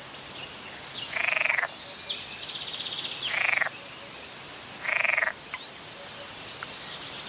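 Frogs croaking at a lake: three loud, rattling croaks about half a second each, a second and a half apart, with a faster, higher trilling call between the first two. A few faint bird chirps in the background.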